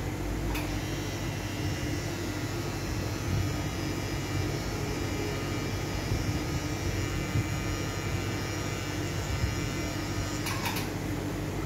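Rotary pen-style tattoo machine running steadily as the needle inks a forearm, a constant buzzing whine over a low hum.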